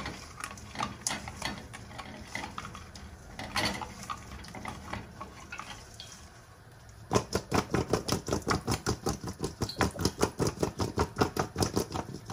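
Peeled potatoes being mixed with turmeric and salt by hand in a stainless steel colander, with soft scattered knocks and rubbing. About seven seconds in, this changes to a fast, even rattle of about five knocks a second as the potatoes are tossed against the steel.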